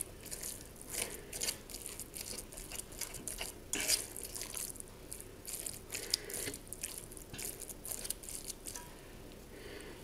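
Wet squelching and crackling as a hand kneads and squeezes a chopped onion and harissa stuffing mixture in a stainless steel bowl, in quick irregular squishes that grow quieter near the end.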